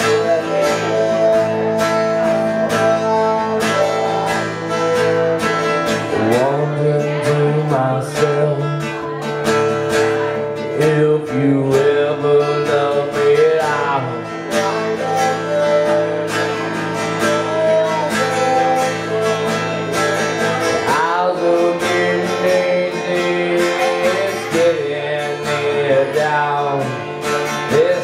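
Two acoustic guitars strummed and picked together in a live country-style song, with a man singing over them.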